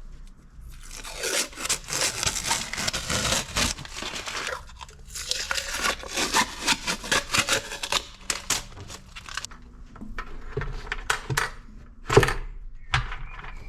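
Crinkling, tearing and rustling noises of hands handling parts during work in an engine bay, in two long stretches, with a single sharp knock near the end.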